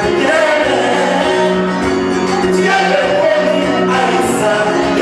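Two male voices singing a worship song over guitar accompaniment, amplified through microphones.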